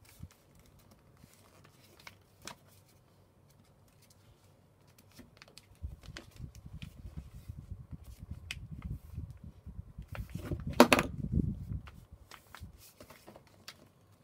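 Paper being folded and pressed flat by hand on a desk: a few small taps and rustles at first, then busier rubbing and rustling of paper from about six seconds in, loudest about eleven seconds in.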